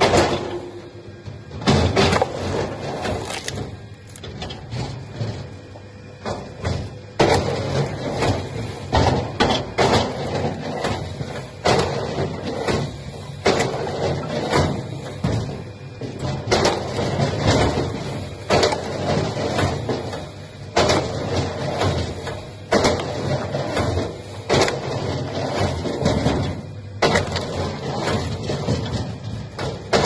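Wood-processing machinery running with a steady low hum, broken by irregular loud cracks and crunches every second or two as wood is worked through it.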